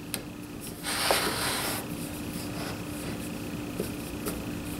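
Wooden boards being slid and shifted by hand on a metal saw table: a scrape lasting about a second starting about a second in, and a few light taps, over a faint steady hum.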